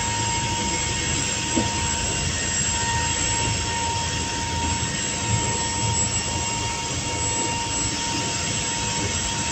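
Motor yacht under way, heard from inside the helm station: the engines run at a steady speed, giving a low rumble and a steady high whine over a constant rushing noise. A faint knock comes twice.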